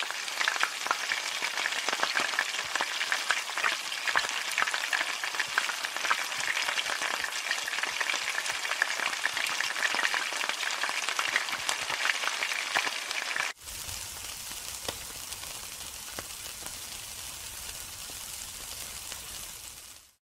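Food frying in hot oil, a dense crackling sizzle. About two-thirds of the way through it cuts abruptly to a quieter, steadier sizzle with a low hum underneath.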